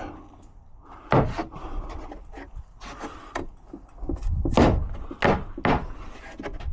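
Wooden fence palings knocking together as they are handled, a few separate hollow wooden knocks, three of them close together near the end.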